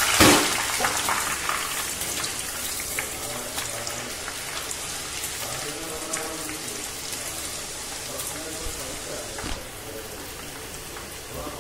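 Strands of gram-flour seva dough deep-frying in hot sunflower oil: a dense crackling sizzle that gradually dies down, with a knock at the very start.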